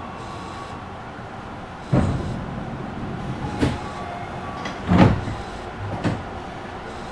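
Inside a Tobu train car: a steady hum broken by four irregular knocks and thumps, the loudest about five seconds in.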